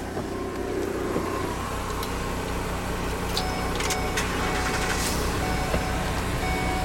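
Steady low idling hum of the box truck's running 5.4L V8 and its Cummins Onan generator, heard inside the cab. A few sharp clicks and faint short chime tones come in from about three seconds in.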